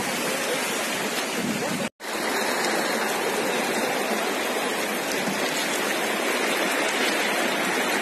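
Shallow, fast-flowing river rushing steadily over and around rocks. The sound cuts out for an instant about two seconds in, then carries on unchanged.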